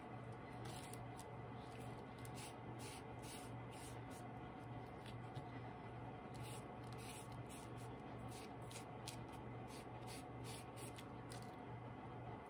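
Foam brush swishing over wet tissue paper in short, faint strokes, a few a second, over a low steady hum.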